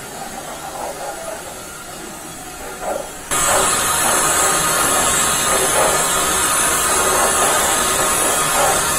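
Industrial hot-air popcorn machine running with a steady hiss, with a light patter as popcorn falls and tumbles. About three seconds in the sound jumps abruptly to a much louder, fuller hiss as the rotating drum takes over.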